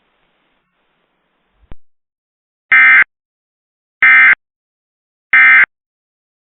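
Three short, loud Emergency Alert System digital data bursts, about a second apart, each a buzzy warble lasting about a third of a second: the SAME end-of-message (EOM) code that closes the test. A faint click comes just before them.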